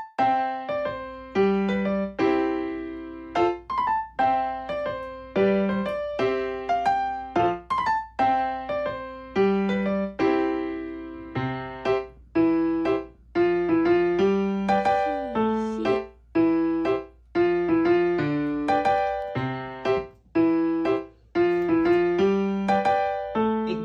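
Background music on piano: short struck chords and notes repeating in an even, light rhythm.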